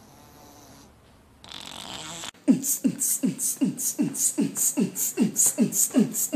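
Quiet at first, then a short hiss, then a fast, even beat from a little past two seconds in. Deep thumps, each dropping in pitch, alternate with hissy hi-hat-like bursts, about three a second, in the manner of beatboxing.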